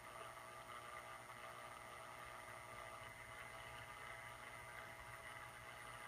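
Faint, steady hum of the induction heater's coolant pump running.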